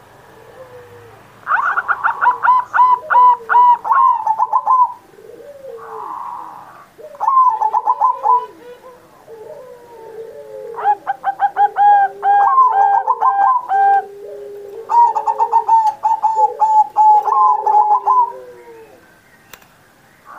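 Zebra dove (perkutut) cooing in its full song: four loud phrases of rapid, staccato notes, each run together into a trill, with softer, lower gliding coos between them.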